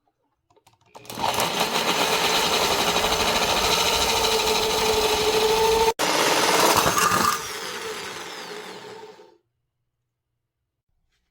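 Small electric power tool motor running steadily under load for about six seconds, then running down with a falling pitch and stopping.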